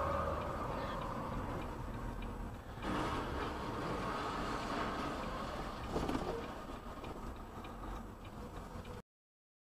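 Steady road and engine noise heard from inside a moving vehicle's cab, with a short louder sound about six seconds in. The sound cuts off abruptly near the end.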